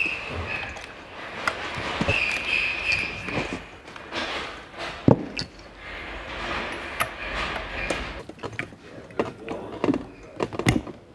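Hand tools clicking and knocking against the metal body of an ABS pump and modulator assembly as it is worked apart, in irregular taps, with one loud knock about five seconds in and a quick run of clicks near the end.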